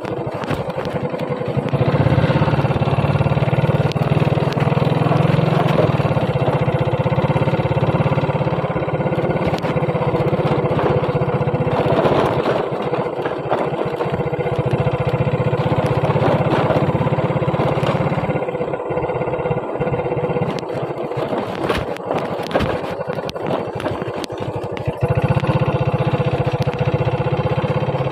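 Motorbike engine running at a steady, even speed while riding over a rough gravel road, with scattered knocks and rattles from the bumps.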